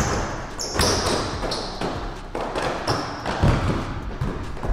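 A basketball being dribbled hard on a hardwood court in irregular thuds during live play. Short high-pitched sneaker squeaks come from the players cutting on the floor.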